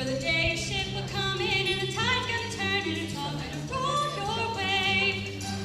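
Show choir singing with vibrato over a steady bass accompaniment.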